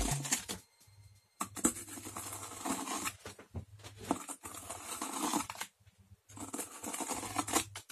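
Steel ruler scraped across freshly poured wet concrete in a round mould, striking off the excess to level the surface: a brief stroke, then a long scrape and a shorter one near the end.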